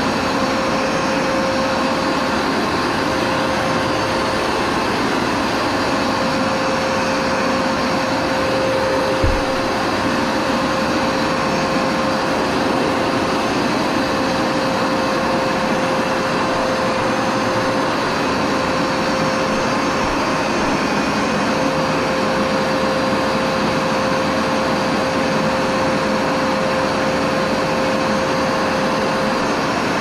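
Upright carpet washer running steadily as it is pushed over carpet: a constant suction-motor noise with a steady whine. A single short knock about nine seconds in.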